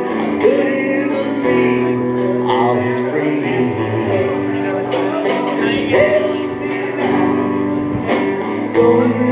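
Live rock band playing between vocal lines: strummed guitar chords changing every second or so over bass, with drum hits.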